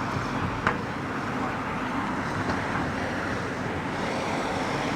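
Steady road traffic noise from passing cars in a town street, with a single sharp click about two-thirds of a second in.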